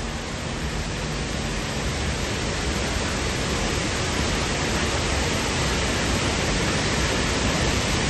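Water pouring over a high dam wall and crashing into a rocky gorge: a steady, dense rush of falling water that slowly grows louder as the fall is approached.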